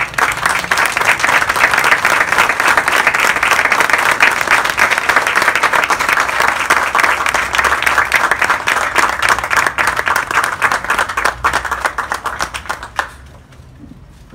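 Audience applauding with many hands clapping, sustained and dense, thinning out and stopping about a second before the end.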